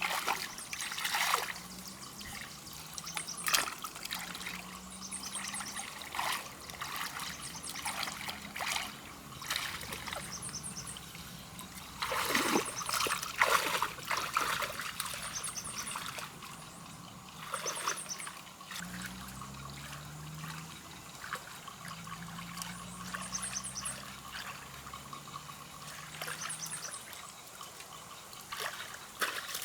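Water trickling and splashing, with a run of louder splashes about halfway through. Small groups of very high chirps repeat throughout, and a faint low hum comes and goes.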